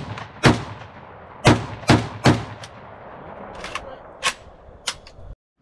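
Kalashnikov USA KS-12 semi-automatic 12-gauge shotgun firing a string of five shots of 2¾-inch double-aught buckshot, each one followed by a ringing echo, the first right at the start and the last about two seconds in. The brand-new gun cycles every round without a stoppage on its L gas setting. Three fainter sharp cracks follow near the end.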